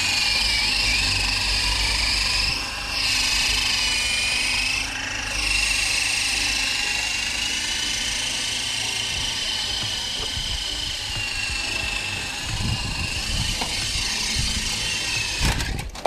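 Small electric motor of a toy remote-control helicopter spinning its rotor with a steady, slightly wavering high whine. The level dips briefly twice, and the sound stops with a knock near the end.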